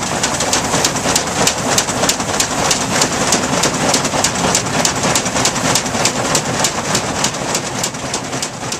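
S.K. Campbell threshing machine running at work, its shaking and belt-driven parts clattering in an even rhythm of about four clacks a second over a steady rush of straw and grain passing through it.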